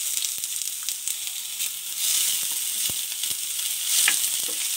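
Chopped onion frying in hot oil in a steel kadai, a steady sizzle, with a few clicks as it is stirred.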